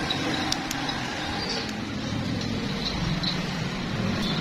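Steady low background rumble, with a few light clicks from fingers pressing along the plastic frame of an Oppo A57 smartphone.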